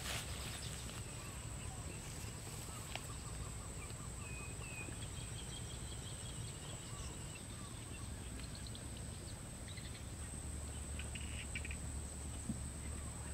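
Outdoor ambience dominated by a steady, high-pitched insect drone, over a low rumble, with faint bird chirps a few seconds in.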